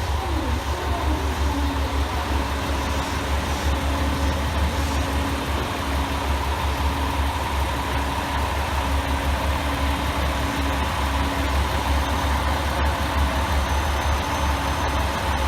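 Diesel railcar engines idling steadily: a low, even rumble with a faint hum that pulses on and off.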